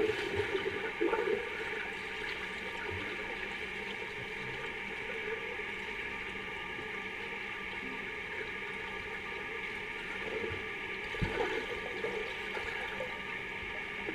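Swimming pool water heard from underwater: a steady watery hiss with a few steady tones under it. Swimmers' splashes and bubbles stir near the start and again about three-quarters of the way through.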